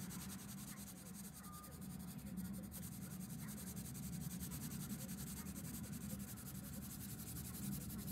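Coloured pencil scratching on paper in rapid back-and-forth shading strokes.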